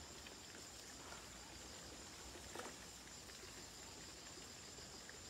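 Near silence: faint outdoor background with a steady high-pitched insect drone.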